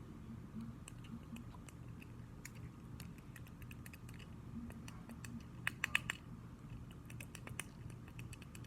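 Fidget cube's clicky buttons being pressed: quiet, scattered plastic clicks, with a quick run of louder clicks about six seconds in.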